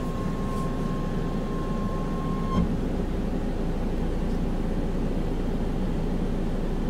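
Steady low rumble of a car heard from inside the cabin, its engine running. A faint steady tone sounds for the first two and a half seconds and ends with a short click.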